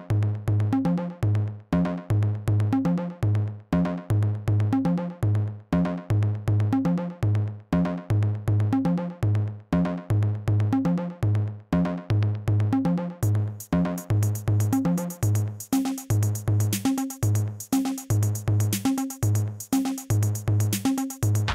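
Background music with a steady electronic beat and bass line; a brighter high layer joins about two-thirds of the way through.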